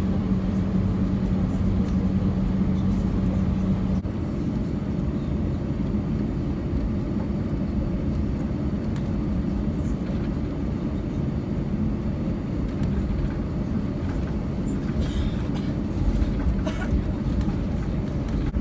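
Airbus A321 cabin noise with the engines running on the ground: a steady low rumble of engines and air conditioning. A steady hum cuts off about four seconds in.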